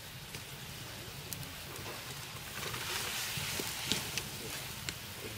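Capsicum-tomato curry cooking in a pan: a steady sizzling hiss with a few sharp crackles, growing louder about halfway through.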